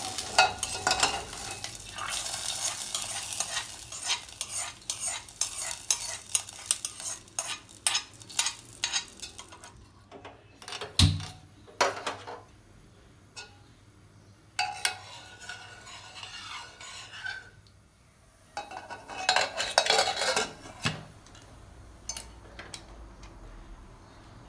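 Steel ladle scraping and clinking in an iron kadai while hot fried tempering sizzles as it goes into a pressure cooker, then a single heavy clunk about eleven seconds in. After that the ladle stirs and scrapes in the steel pressure cooker in two short spells.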